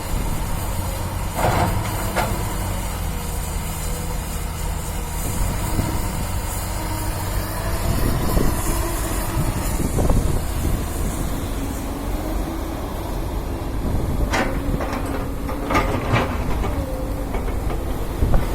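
Excavator diesel engine running steadily while it digs and loads soil, its pitch shifting as the hydraulics work, with a few sharp knocks about a second and a half in and again near the end.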